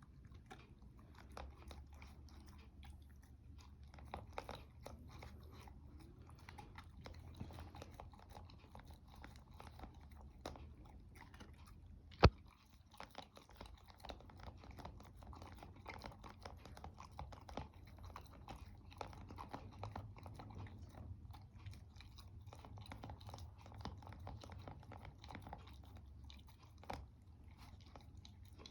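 Dog chewing and crunching food, a run of small irregular crunches and clicks, with one sharp, much louder click about twelve seconds in.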